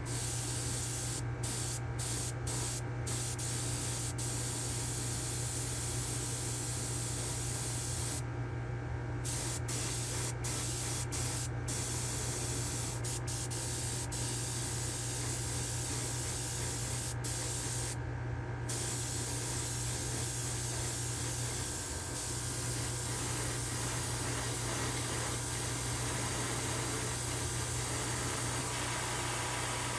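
Airbrush spraying paint with a steady hiss that breaks off briefly several times as the trigger is let go, over a steady low hum.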